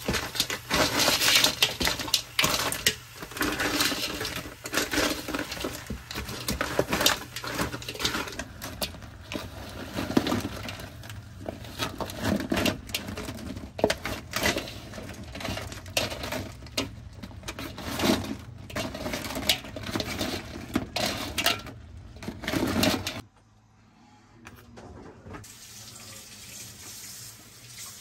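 Dungeness crab shells and a spatula clattering and scraping in a large metal pot as the crab is stir-fried, in quick irregular knocks. The clatter cuts off suddenly about 23 seconds in, leaving a low hush.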